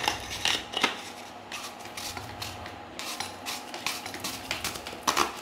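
Metal parts of a small hand-held electrical tester being handled and fitted back together: its metal tube slides over the inner parts with irregular clicks and scrapes, thickest in the first second.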